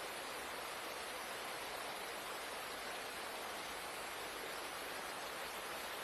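Water of a small waterfall spilling and splashing over rocks into a stream: a steady, bright rush with little low rumble.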